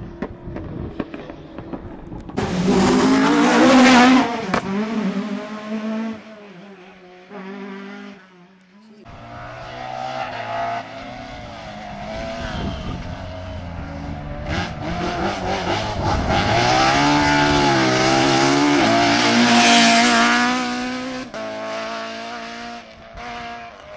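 Rally car engines revving hard, the pitch climbing and dropping through gear changes as cars pass at speed on a stage, with one loud pass a few seconds in and a longer one in the second half.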